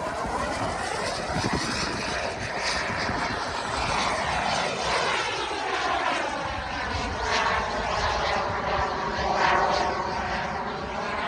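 JetCat 180 model jet turbine of a large RC L-39 jet running at speed as the model flies past. The sound swells to its loudest about three-quarters of the way through.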